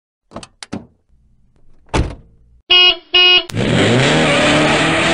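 A car sound sequence: a few clicks and a door-like thunk, then two short horn beeps, then an engine starting and revving, its pitch rising.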